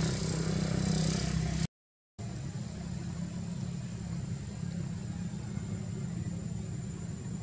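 Steady low engine hum, like a vehicle motor running, broken by a half-second dropout to silence about two seconds in. After the dropout a faint, steady high whine runs over it.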